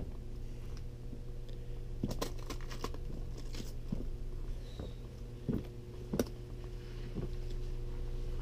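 Footsteps crunching on ice-glazed snow and ground: scattered, irregular crunches over a faint steady hum.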